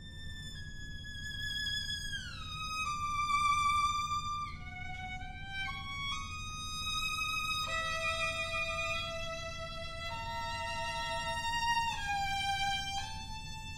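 Solo violin playing slow, held notes, with a long downward slide about two seconds in and some notes sounded two at a time near the end.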